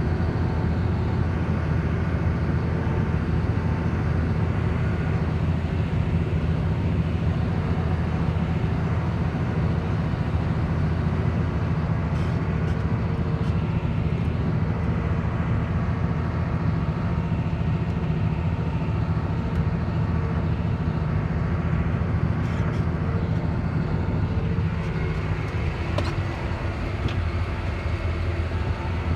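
Farm tractor engine running steadily with a deep, even drone, easing slightly in level about three-quarters of the way through.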